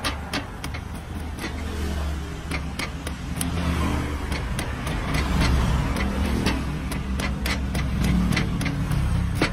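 Steel cleaver chopping and shaving the husk off a young coconut on a wooden board: a quick, uneven run of sharp cuts. Under it a motor vehicle's engine runs, rising in level around the middle and again near the end.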